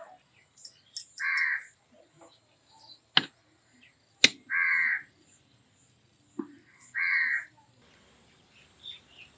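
A crow cawing three times, each caw a short harsh call about three seconds apart. Between the caws come two sharp clinks, a spoon striking the steel biryani pot.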